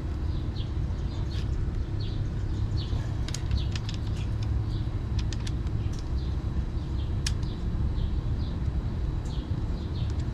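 Steady low rumble of outdoor traffic with small birds chirping over it again and again, and a few sharp clicks.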